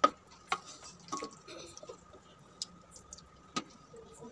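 Wooden spoon stirring thick beans curry in a stainless steel pressure cooker pot: soft wet squelching with a few sharp knocks of the spoon against the pot, the loudest right at the start.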